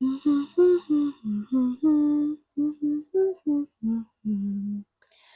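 A voice humming a short melody in quick separate notes, about a dozen of them at roughly three a second, ending on a longer, lower held note.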